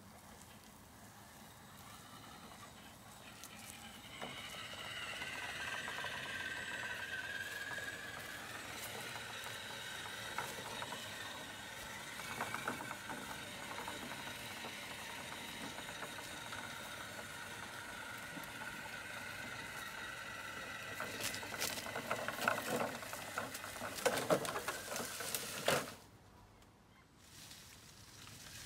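Electric motor and gear drivetrain of a 1/10-scale Element RC Enduro Sendero trail truck whining as it drives, rising in pitch about four seconds in and then holding steady. Crackling and rustling come in over the last several seconds, and the whine cuts off a couple of seconds before the end.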